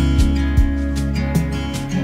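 Background music: a guitar track with a steady low bass.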